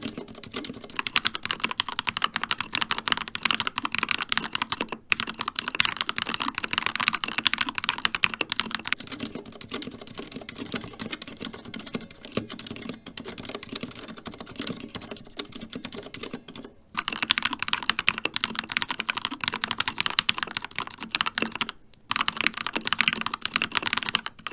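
Fast continuous typing on mechanical keyboards, switching between two boards. The Keychron K2 with Gateron Red linear switches gives louder, brighter key clacks from about a second in and again from about seventeen seconds in. Between those, the CZC Halfling with dampened Cherry MX Silent Red switches is noticeably quieter and more muffled.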